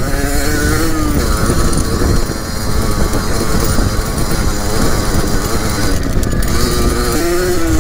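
Yamaha DT trail bike's two-stroke engine running under throttle as it is ridden across a grass field. The revs climb about a second in and rise and fall again near the end, with wind noise underneath.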